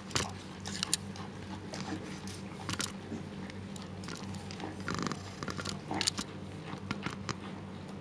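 Siberian husky mother licking and nibbling her newborn puppy clean: irregular wet smacks and clicks of her tongue and mouth.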